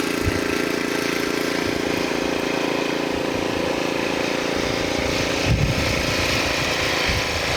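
An engine running steadily at an even hum, with a short low thump about five and a half seconds in.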